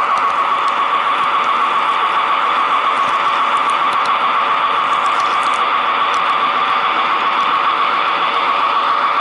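Model train running along the track, heard from a camera riding on it: a steady high-pitched whine from the locomotive's drive and the wheels on the rails, with faint scattered ticks.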